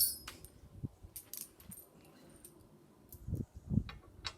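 Small metal parts and hand tools being handled while fitting radiator-bracket hardware: light metallic clinks and clicks, then two dull knocks a little over three seconds in.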